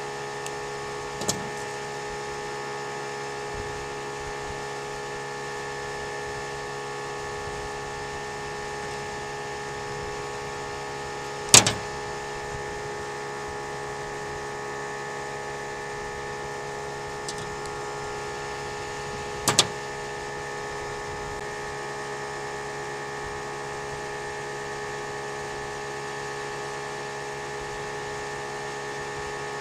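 A steady machine hum made of several held tones, broken by sharp clicks: a light one about a second in, the loudest about eleven and a half seconds in, and a quick double click near twenty seconds.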